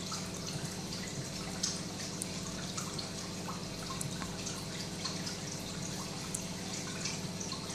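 Reef aquarium running: water trickling and dripping with many small irregular drips, over a steady low hum from its equipment.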